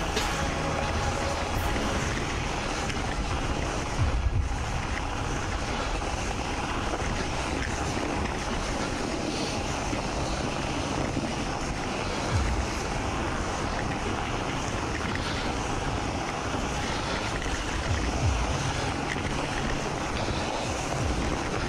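Steady rush of wind on the microphone together with a bicycle's slick road tyres (Continental GP4000s) rolling over packed snow, with a few brief low buffets of wind.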